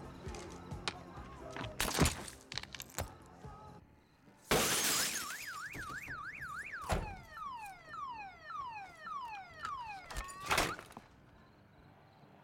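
A car's side window is smashed in a single loud crash. The car alarm then goes off, first a fast rising-and-falling warble, then a run of repeated falling whoops. The alarm cuts off suddenly about eleven seconds in.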